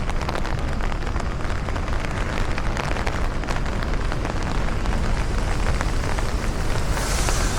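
Steady heavy typhoon rain, the hiss of the downpour laced with dense close raindrop ticks. A louder, brighter hiss comes in near the end.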